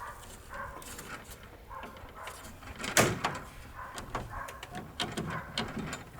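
Clicks and clatter of tools being handled at an aluminum shed door, with one sharp knock about three seconds in.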